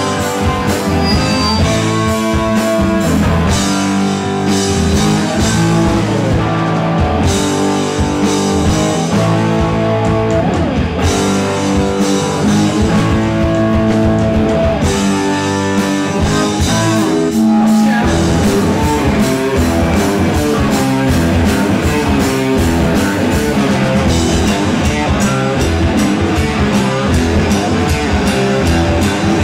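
Heavy metal band playing live: electric guitars, bass guitar and drum kit.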